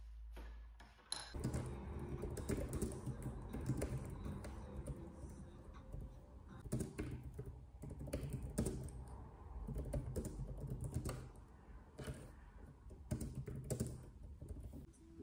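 Typing on a compact keyboard with round plastic keycaps: a quick, irregular patter of light key clicks, starting about a second in.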